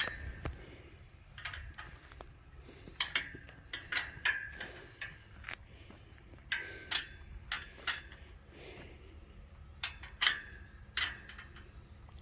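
Irregular light clicks and clinks, some ringing briefly, as greenhouse frame parts are handled and fitted together during assembly.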